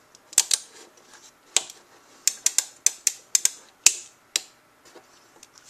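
Ruger Super Single Six revolver's action being worked by hand: about a dozen sharp metallic clicks at an uneven pace as the hammer is drawn back and the cylinder is turned with the loading gate open. The clicks stop shortly after four seconds in.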